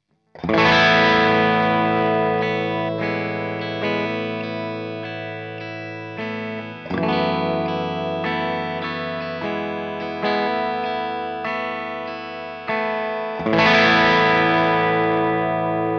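Gibson Les Paul electric guitar played through the AmS Tornado 20, a 20-watt valve amp with two EL84 power valves, heard from its 1x12 cabinet with a Celestion Alnico Cream speaker. Chords are struck and left to ring as one setting of a gain sweep from clean to crunch. A big chord comes just after the start, shorter chords follow, and fresh big strums come about seven seconds in and again near the end.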